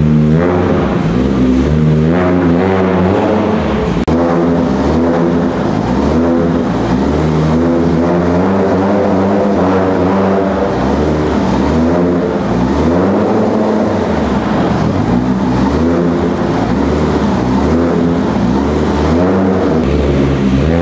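1933 MG J2's supercharged four-cylinder engine running while stationary, blipped repeatedly so its pitch climbs and falls again and again.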